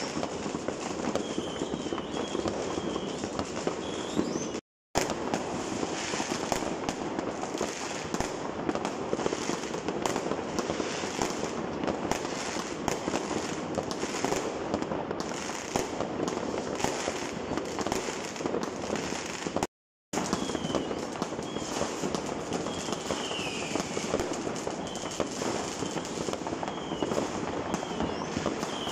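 Many fireworks and firecrackers going off at once in a continuous, dense crackle of bangs, with a few short high whistles. The sound breaks off completely twice, for a moment each time.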